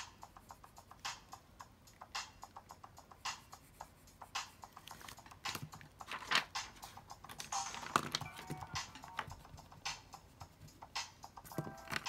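Quick irregular clicking and tapping. The clicks come thick in the first second and again around eight seconds in, and a few short beeping tones sound near the end.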